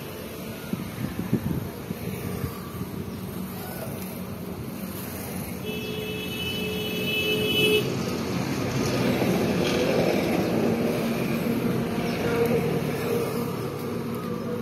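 Road traffic passing steadily, with a vehicle horn sounding one steady note for about two seconds near the middle.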